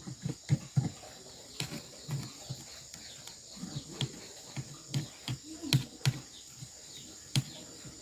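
Irregular light knocks and clicks, about one or two a second, over a steady high-pitched whine.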